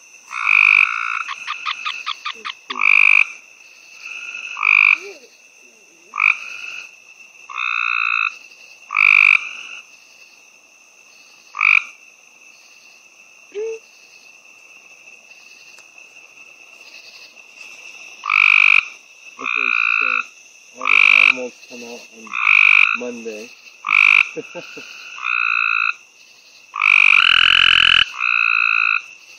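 Gray treefrogs calling: about fifteen short, loud trilled calls at irregular intervals, with a quiet stretch in the middle. A faint steady high-pitched tone runs underneath.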